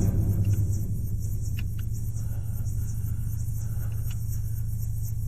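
Low, steady rumbling drone from a tense background music score, with a few faint light clicks over it.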